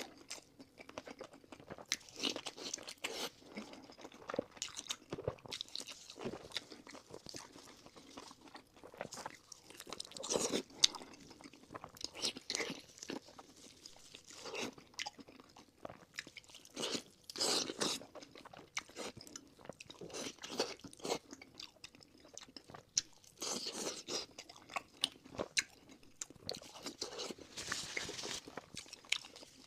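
Close-miked eating: slurping noodles and chewing crunchy fried pork, with irregular bursts of crunching and wet mouth sounds.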